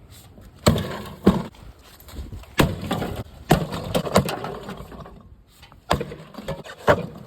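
A mini fridge being smashed: about eight hard blows at uneven intervals, with clattering and crunching between them.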